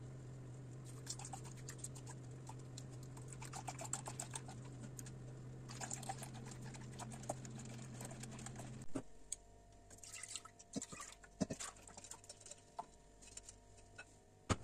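Silicone whisk beating milk into a mixture in a glass bowl: quick light ticks and patter against the glass as milk is poured in, over a steady low hum. About nine seconds in, the hum and the whisking stop, and a few scattered sharp clicks and knocks follow.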